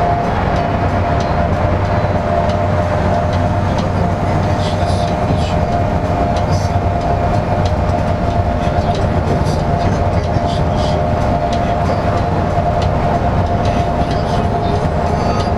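Cabin noise of a LiAZ-5292 city bus cruising at highway speed: a steady drone of engine and tyres with a steady whine over it and faint light rattles now and then.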